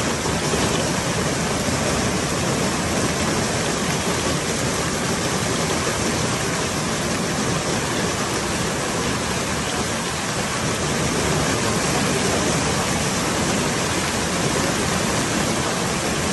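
Heavy downpour of a hailstorm, a steady unbroken hiss of rain and hail falling.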